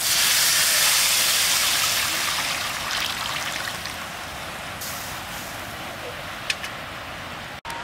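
Tamarind water poured from a pot into a simmering fish curry in an aluminium pot, a splashing rush that starts suddenly and tapers off over about four seconds. A short click comes near the end.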